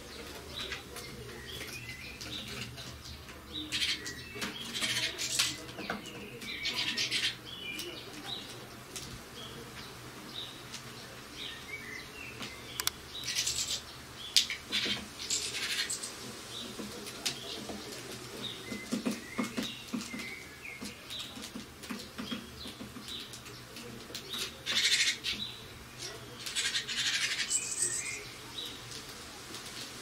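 Great tits fluttering on and off a wire seed feeder: short bursts of wingbeats every few seconds, with light clicks and taps in between.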